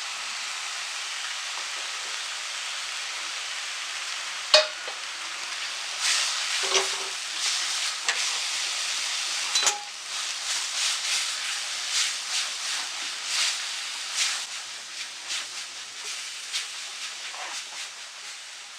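Onion-garlic masala paste with powdered spices sizzling in hot mustard oil in a kadhai, stirred and scraped against the pan with a utensil in quick strokes; sharp clinks of the utensil on the pan about four and a half and ten seconds in. This is the spice-frying stage of the gravy.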